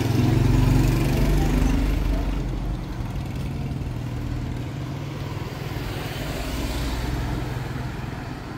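Peugeot 405 car driving past close by, its engine loudest in the first couple of seconds and then fading away, with a lower engine hum going on behind it.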